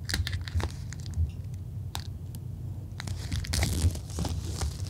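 Plastic shrink-wrap being peeled and torn off a cardboard game box, crinkling and crackling in scattered snaps, with a denser burst of crinkling about three and a half seconds in.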